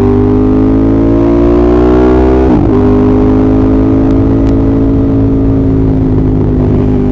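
Ducati Monster 1200S's L-twin engine pulling hard, its pitch rising steadily, then dropping sharply on an upshift about two and a half seconds in. After the shift it runs on at a steady, slightly falling pitch.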